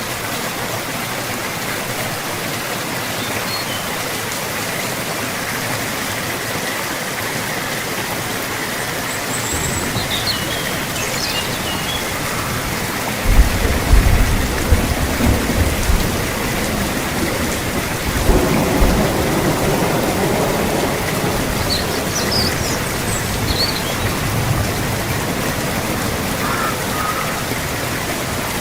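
Steady rainfall with a roll of thunder starting about halfway through and a second rumble a few seconds later.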